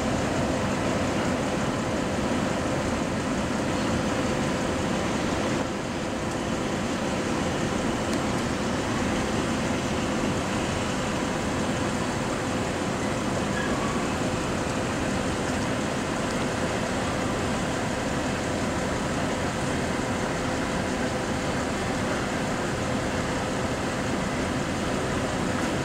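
Freight train of covered hopper cars rolling past at steady speed: a continuous rumble of wheels on rail, with a faint steady hum underneath.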